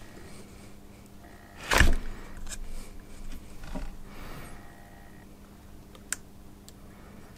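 Hands handling a soldering iron and small parts at a workbench: a brief loud bump about two seconds in, then a few faint clicks and taps, over a low steady hum.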